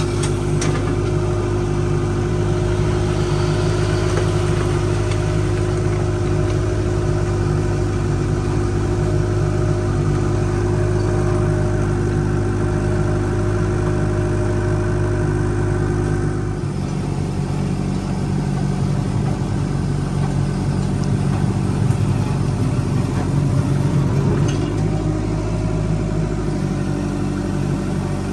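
Mini excavator's diesel engine running steadily, heard from the operator's seat. About sixteen seconds in, its note changes, and it changes again near the end.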